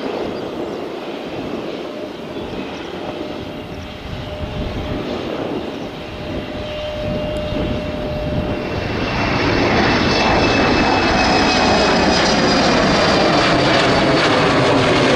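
Airbus A350's twin Rolls-Royce Trent XWB turbofans running at low thrust as it rolls onto the runway. About nine seconds in they spool up and become much louder with a high whine, the start of the takeoff run.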